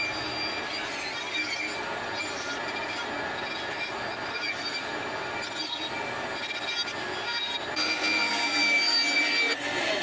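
Bandsaw running and cutting through half-inch plywood: a steady high whine over the rasp of the blade in the wood, a little louder near the end.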